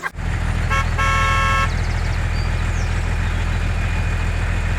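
Mini tractor's engine running with a steady low hum, with its horn tooting twice: a short toot and then a longer one about a second in.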